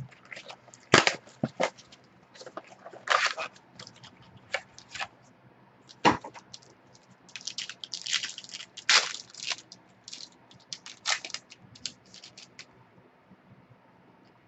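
A sealed box of football trading cards being opened by hand: packaging crinkles, tears and snaps in an irregular run of sharp crackles, which stops near the end.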